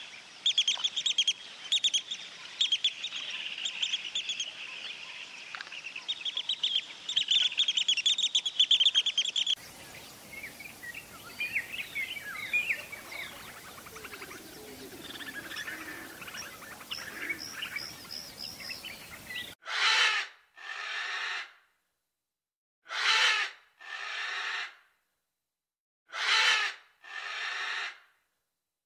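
Small birds chirping and twittering in a dense chorus for about the first third, then fainter, scattered bird calls. In the last third come raspy calls about a second long, in pairs, with short silences between the pairs.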